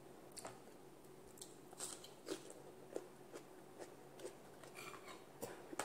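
A person eating: soft, irregular chewing and biting clicks at a slow, uneven pace. A sharper knock comes near the end.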